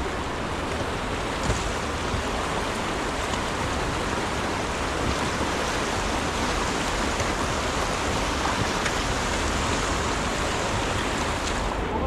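Beas River rushing over a shallow rocky riffle around a drifting inflatable raft: a steady, even rush of water with no breaks.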